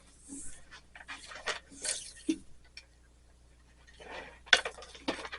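Light metallic clinks, scrapes and rustles of a strip of stained-glass came and small tools being handled on a work table, with a sharper click about four and a half seconds in.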